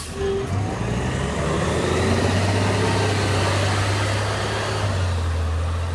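A bus engine running as the bus pulls away from the stop: a low, steady drone that steps up in pitch a second or two in, then holds.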